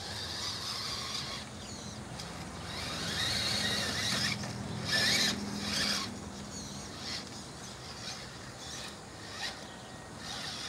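Redcat RC rock crawler's twin 40-turn 380-size brushed electric motors, one on each axle, whining through their gears as the truck crawls over rocks. The pitch rises and falls with the throttle, with louder spurts about four to six seconds in.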